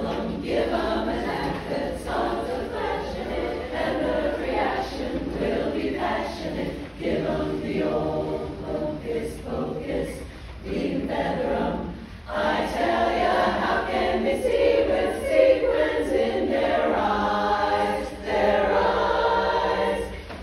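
Women's chorus singing together, phrase after phrase, with a brief break about twelve seconds in.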